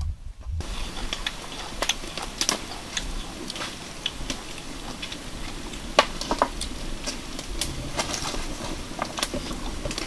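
Wood fire crackling: irregular sharp clicks and pops, one louder pop about six seconds in, over a low steady rumble.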